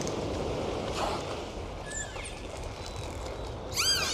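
Steady noise of surf breaking on a beach, with a few faint short whistles over it. Near the end comes a brief, louder run of high arching chirps.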